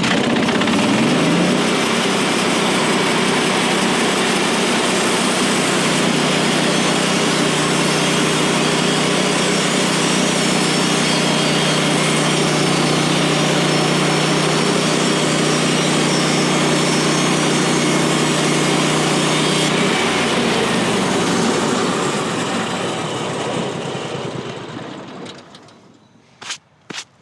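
Portable band sawmill's gas engine throttling up to speed, running steady at high revs, then throttling down and winding to a stop. Two sharp clicks come near the end.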